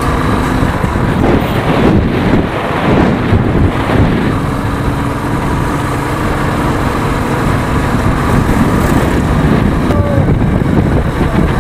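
Royal Enfield single-cylinder motorcycle engine running steadily at cruising speed, with wind buffeting the microphone.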